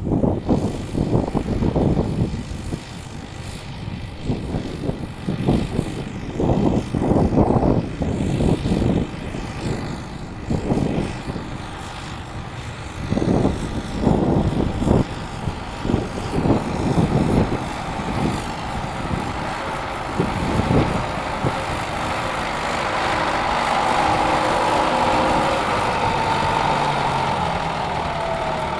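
Farm tractor running, with many irregular knocks and thuds. Then a steadier engine drone swells and rises slightly in pitch near the end.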